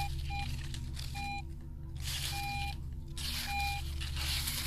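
Garrett AT Pro metal detector giving about six short beeps of one steady pitch as the coil is swept back and forth over a buried target, with scuffing and rustling noise between the beeps.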